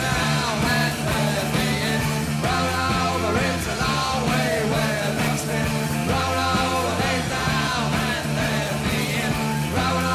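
Rock song with a singing voice over a band, playing steadily.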